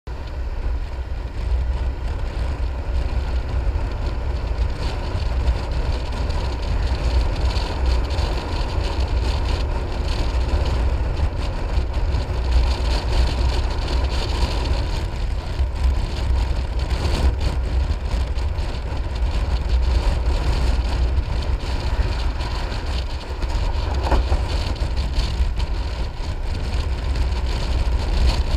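Piaggio MP3 500 three-wheeled scooter under way, its single-cylinder engine running steadily. A steady rush of wind and road noise and a low buffeting rumble of wind on the microphone run over it.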